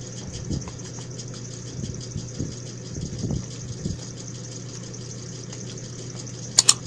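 Steady low mechanical hum, with soft knocks as takeout food boxes and a plastic utensil are handled, and a sharp double click near the end.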